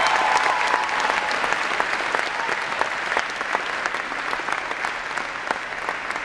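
Crowd applauding, many people clapping at once, the clapping gradually thinning and getting quieter.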